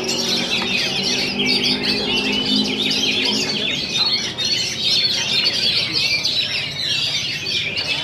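Many oriental magpie-robins singing at once in a bird-song contest, a dense, unbroken mix of rapid chirps and whistles. A low steady hum sits underneath and fades out about halfway through.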